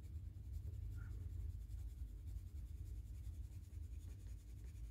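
Soft-core colored pencil scribbling back and forth on printer paper as a swatch is filled in: a faint, steady scratching over a low hum.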